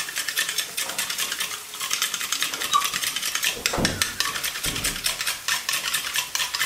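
Whole nutmeg rasped on a small hand grater over the pan, a fast run of scratchy strokes, with onions and garlic frying quietly in butter underneath. A dull knock near the middle.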